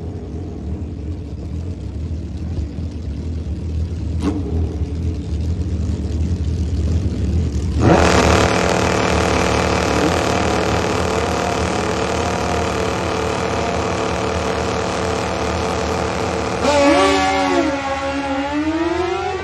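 Drag-racing motorcycle engines. A low engine rumble gives way about eight seconds in to a sudden, loud high-revving engine that holds steady. Near the end its pitch drops and then climbs again.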